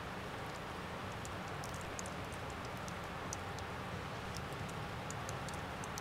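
Steady outdoor background hiss with scattered faint, sharp high ticks, several a second at irregular intervals.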